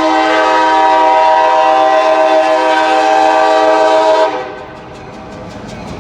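Freight locomotive's air horn sounding one long, steady, multi-note blast that cuts off a little over four seconds in. Train rumble with rapid, regular clicking follows.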